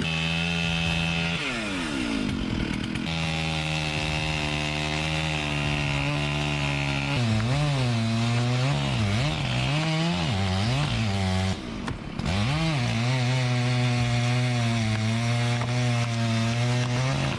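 Two-stroke chainsaw running at high revs, its pitch sagging and recovering several times in the middle as it bogs down in the wood, with a brief drop-out about twelve seconds in.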